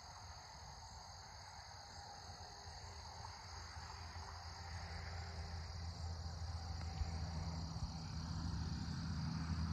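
Crickets trilling in a steady, high, unbroken chirr across an open field. A low engine-like rumble grows steadily louder beneath them.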